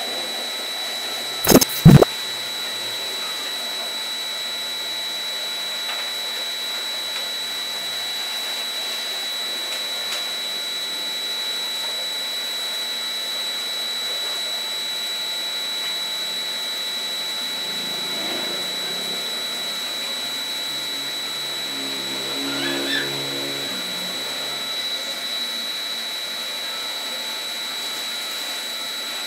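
Electric motor running steadily, a high whine over a constant hiss, with two loud knocks about two seconds in.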